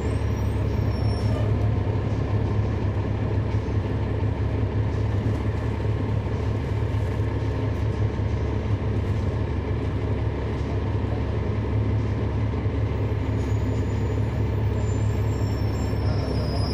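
Inside a 2011 NABI 416.15 transit bus: its Cummins ISL9 diesel engine runs with a steady low drone. Thin high squeals come in near the end.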